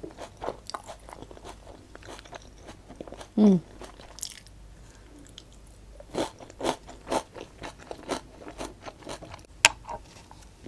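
Close-miked chewing of crunchy food, with many short crunches that grow louder and more frequent in the second half. A short vocal sound falling in pitch comes about three seconds in, and a sharp crunch near the end as a fresh bite is taken.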